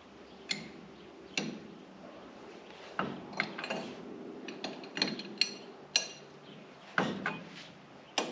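Irregular sharp metal clinks and taps of an open-end wrench on a nut and bolt as the nut is worked off the tractor's sway block bolt, about a dozen over several seconds.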